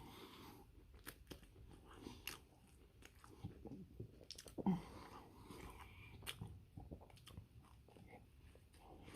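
Close-up chewing of a chili dog on a toasted bun: soft crunches and many small wet mouth clicks and smacks. One brief, louder low sound comes a little under five seconds in.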